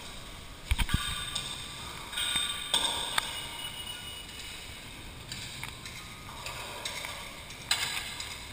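Handling noise: cloth rustling and rubbing against the camera's microphone in patches, with a few sharp knocks, a cluster about a second in, one near three seconds and one near the end.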